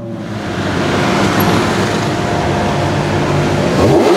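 Ferrari supercar engine running at steady low revs in street traffic, getting gradually louder, with a short rise in revs near the end.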